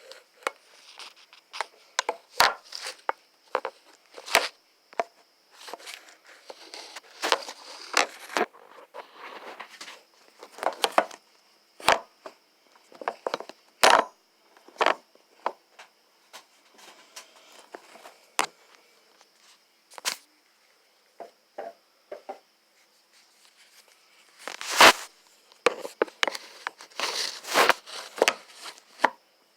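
Irregular rustling and crinkling with sharp clicks scattered throughout and a louder cluster near the end.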